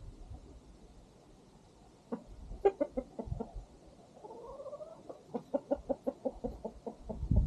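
Domestic chickens clucking: a few clucks about two seconds in, a drawn-out rising call in the middle, then a quick run of short clucks near the end.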